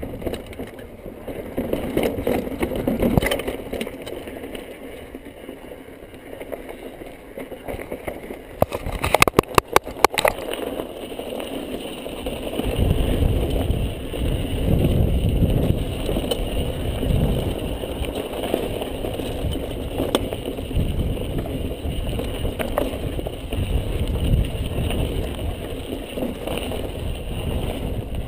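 Yeti mountain bike ridden down a rocky, gravelly trail, heard from a chest-mounted camera: a continuous rumble of tyres on rock and gravel with the bike rattling. A quick run of sharp clatters comes about nine to ten seconds in, and the low rumble grows heavier from about halfway through the first half as the bike picks up speed on the gravel descent.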